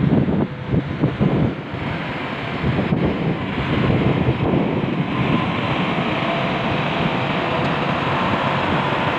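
Steady rumble of heavy construction machinery, with uneven surges in the first couple of seconds and wind buffeting the microphone.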